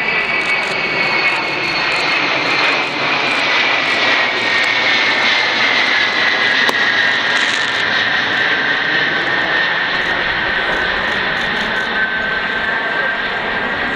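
Xian Y-20A transport's four D-30KP-2 turbofan engines on a low overhead pass: steady jet noise with a high whine that slowly falls in pitch as the aircraft goes by.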